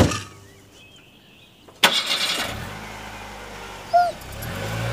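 A car door shuts with a sharp knock, then about two seconds in the car's engine starts and settles into a steady low running hum that grows louder near the end. A bird chirps briefly twice.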